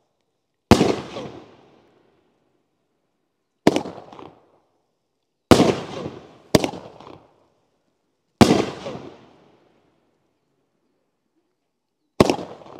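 Consumer fireworks cake firing aerial shells: six sharp bangs of bursting shells, spaced unevenly one to four seconds apart. Each bang fades in a short rumbling echo.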